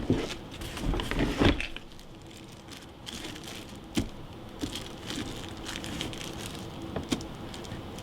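Handling noises: plastic crackling and rustling for about the first two seconds, then quieter, with a few sharp clicks.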